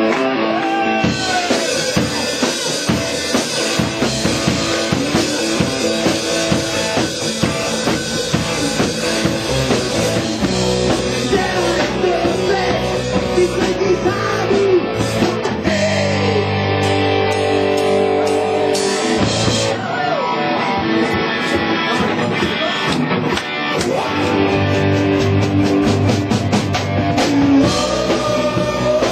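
Live rock band playing loud: drum kit and electric guitars, with a man singing into a microphone.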